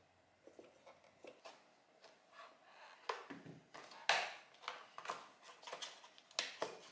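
Hands handling a plastic BMW E39 Hella headlight housing: a scatter of faint clicks and light knocks, the loudest about four seconds in.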